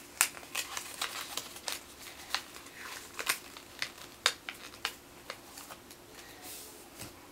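A sheet of paper being folded by hand into a paper boat on a tabletop: irregular crinkles, taps and rustles as the folds are pressed and creased, thinning out near the end.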